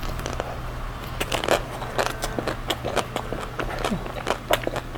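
Chewing and crunching of a chocolate-coated mini Magnum ice cream bar, its cracked chocolate shell giving many quick, irregular crackles over a low steady hum.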